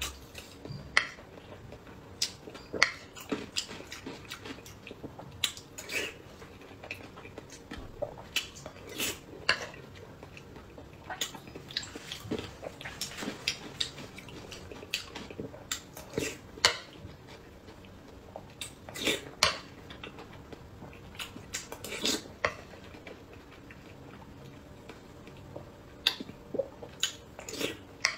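Close-miked chewing and biting of whole hard-boiled eggs, with irregular short clicks and clinks of a metal spoon against the wooden tray and bowl.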